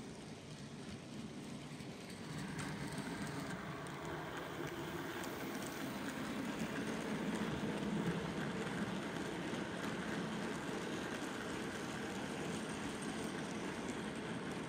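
OO gauge model goods train running past: the steady rolling rattle of the locomotive and a long rake of wagons on the track, getting louder about two seconds in and loudest around eight seconds in as the locomotive passes.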